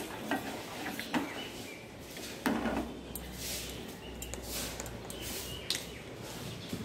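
Steel ladle scraping and clinking against a steel pot while stirring thick milk rice pudding. A few separate knocks and scrapes, the loudest about two and a half seconds in.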